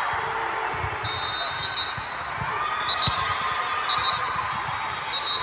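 Volleyballs being struck and bouncing on indoor sport courts, a few sharp knocks over a steady chatter of players and spectators in a big echoing hall. Short high-pitched tones come and go several times.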